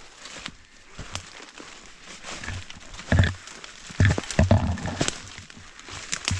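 Footsteps crunching through dry leaf litter in woodland, with irregular crackles and a few louder, deeper thuds about three and four seconds in.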